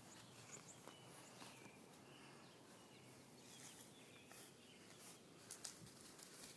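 Near silence: faint outdoor background, with a couple of soft clicks about five and a half seconds in.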